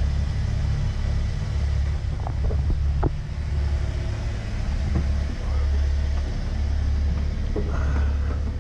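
Sailing yacht's inboard engine running steadily under way, a constant low drone, with a few light knocks about two, three and five seconds in.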